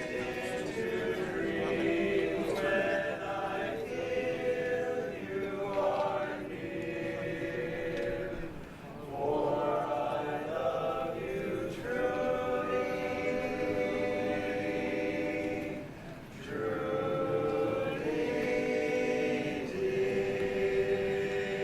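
Barbershop singers performing a traditional song a cappella in close harmony, held chords broken by two short breaths.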